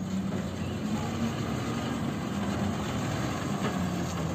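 Ashok Leyland tipper truck's diesel engine running steadily at low speed as the truck reverses and turns on dirt ground.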